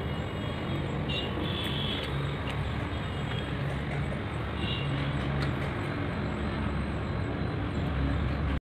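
Steady low rumble and hiss of background noise, like distant road traffic, that cuts off abruptly near the end.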